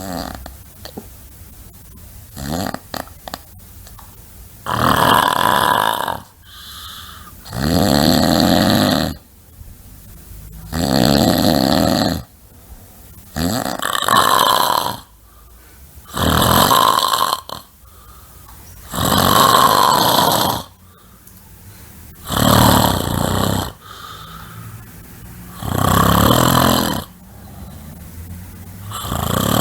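Someone sleeping and snoring loudly, one long rattling snore about every three seconds, with quieter breaths between them. The snores begin about five seconds in, after a few faint clicks.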